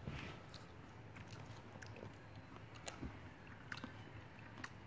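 Faint, scattered small clicks and smacks of a toddler chewing grapes, spaced irregularly about every half second to second.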